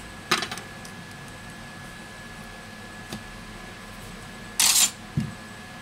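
Small clicks and a short scraping rustle from hands working inside an opened smartphone, pressing flex-cable connectors home and fitting a metal connector cover on the lower board. The loudest is a brief scrape near the end, followed by a soft knock.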